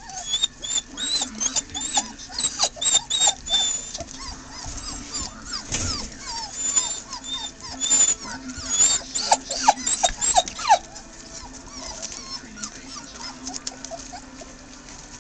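24-day-old German Shorthaired Pointer puppies squeaking and whining in short, high-pitched cries mixed with clicks, as they crowd around metal feeding pans. The cries stop about eleven seconds in.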